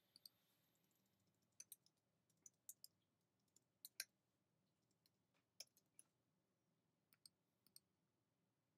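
Faint computer keyboard keystrokes and mouse clicks, sharp irregular clicks in small clusters, the loudest about four seconds in, as a word is deleted and retyped.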